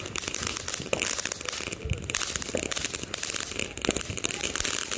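Showtime Fireworks' Malibu Madness firework fountain spraying sparks: a hissing spray packed with fast, dense crackling pops.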